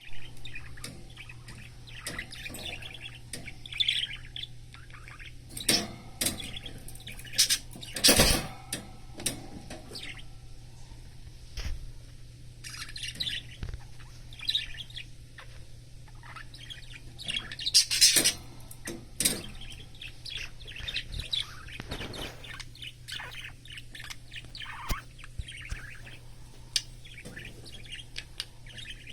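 Budgerigar chirping and chattering in short bursts, mixed with scattered small clicks and taps, and a few louder sharp squawks.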